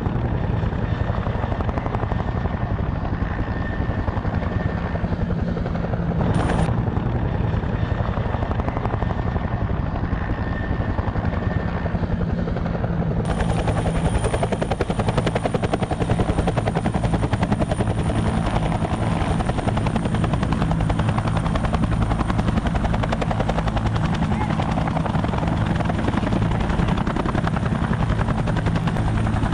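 Bell UH-1 Huey helicopter running close by, its rotor blades beating rapidly and steadily over the engine. The sound turns brighter about thirteen seconds in.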